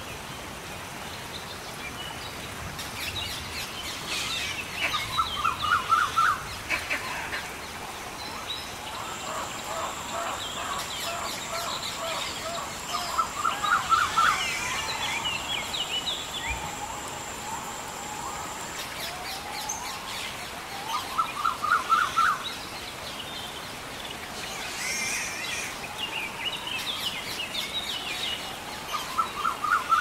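Birds calling in a forest soundscape: a short run of rapid repeated notes comes back about every eight seconds, with other chirps around it. A thin, steady high tone runs through the middle of the stretch.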